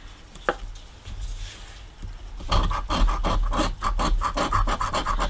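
A coin scratching the coating off a $20 Cash Explosion scratch-off lottery ticket: quick rasping strokes, several a second, starting about two and a half seconds in, after a single click near the start.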